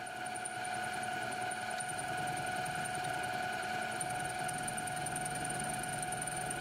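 Optimum MH 22V mini milling machine spindle running, coming up to speed over the first second or two and then holding a steady whine over a low hum.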